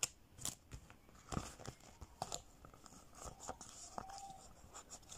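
Faint, irregular rustling and crinkling of banknotes and plastic binder pockets being handled, with scattered sharp clicks.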